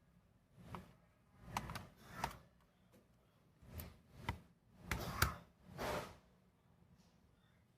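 Phillips screwdriver working the small screws out of a laptop's plastic bottom case: a run of short clicking and scraping bursts, with brief pauses between them.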